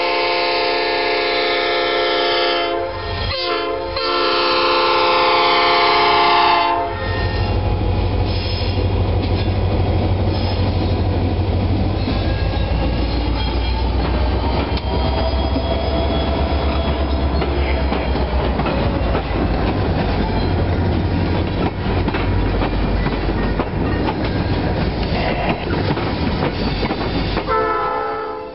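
Diesel locomotive air horn blowing two long blasts for a grade crossing, with a short break about three seconds in; the horn stops about seven seconds in. Then the locomotive's diesel engine rumbles and the tank cars' wheels clatter over the rails as the freight train passes, and the horn sounds again briefly near the end.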